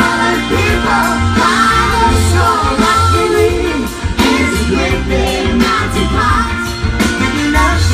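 A band playing a song live, with a lead singer over bass, drums and guitar.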